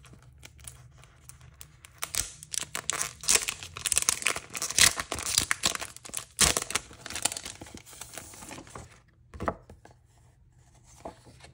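Packaging crinkling and tearing as a pack of sticker sheets is opened and handled, busiest in the middle, then a few soft knocks near the end.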